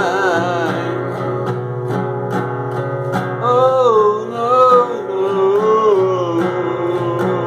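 Acoustic guitar strummed as a chorus accompaniment, with a male voice holding a wavering, wordless sung note from about halfway through.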